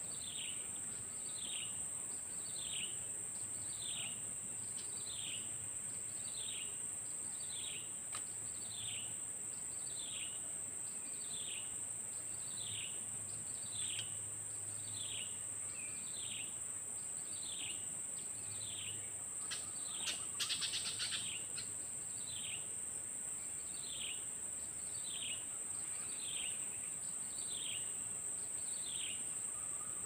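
Steady high-pitched insect drone, with a short descending bird chirp repeated about once a second over it. About twenty seconds in there is a brief burst of rapid clicking chatter.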